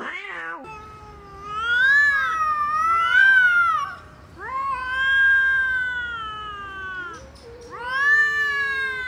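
Two cats yowling at each other in a face-off: several long, drawn-out wails that waver up and down in pitch, one after another. This is the threat caterwauling of a cat standoff.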